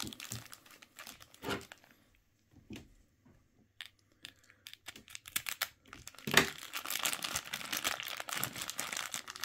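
Clear plastic bag crinkling and crackling as it is handled and opened to free the toy's parts. Scattered crackles at first, nearly quiet for a second or two, then dense, continuous crinkling from about six seconds in.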